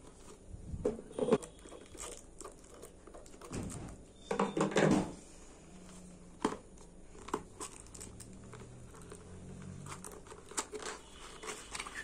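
Cardboard box being opened by hand: tape torn from the seam and cardboard rustling and scraping in irregular bursts, with scattered small taps and clicks. The loudest rustles come about a second in and again around four to five seconds in.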